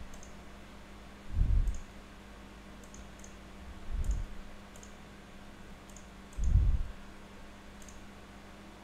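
Computer mouse clicking: about nine faint, sharp clicks, several in quick pairs. Dull low thumps about every two and a half seconds are louder than the clicks, over a steady low hum.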